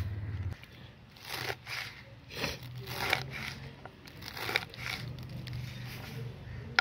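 A kitchen knife cutting through bunches of leafy saag greens: about half a dozen separate cuts, spaced irregularly.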